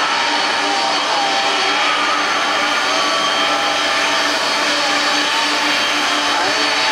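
Jet airliner engines running: a steady, loud rush with several whining tones on top, a few of them wavering slightly in pitch.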